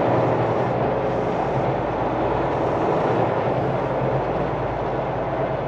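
Semi-truck's Cummins X15 diesel engine running steadily at low speed, heard from inside the cab.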